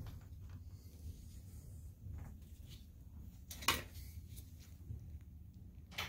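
Low steady hum with a few faint knocks and clicks, the sharpest a little past halfway and another near the end.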